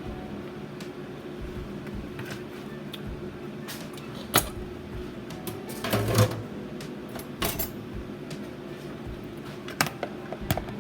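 Kitchen clatter: a handful of sharp knocks and clinks from utensils and containers being handled. The loudest come about four and six seconds in, with a few more near the end.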